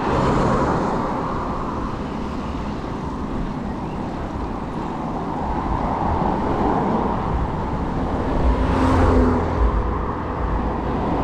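Road traffic on a city street with wind buffeting an action camera's microphone; a vehicle passes close about nine seconds in, with a brief engine tone.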